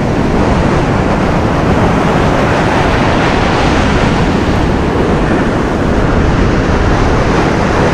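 Steady loud rush of surf and wind, with wind buffeting the microphone.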